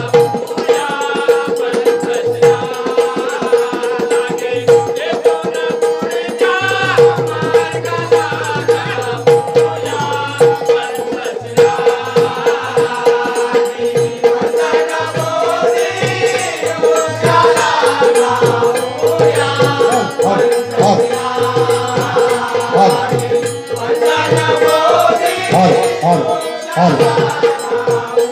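Live Marathi Bhim geet (jalsa devotional folk song) with singing voices over rhythmic percussion and a steady held drone tone.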